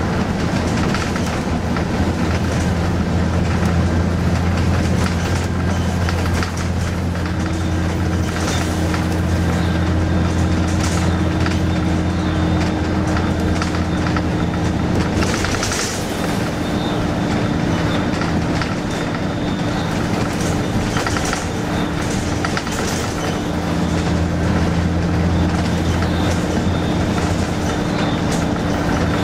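Bus engine running on the move, heard from inside the passenger cabin, with a steady low hum, a higher whine that sets in about a quarter of the way through, and frequent small rattles and clicks from the fittings. The engine note dips briefly about halfway through.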